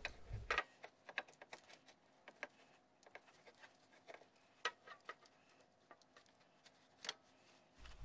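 Faint, scattered light clicks and taps as a replacement starter motor is handled and worked up into place under the car.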